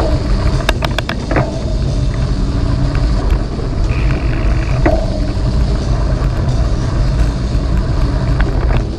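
Mountain bike rolling along a gravel trail, with wind on the microphone: a loud, steady rumble of tyres and wind, and a quick run of clicks and rattles about a second in.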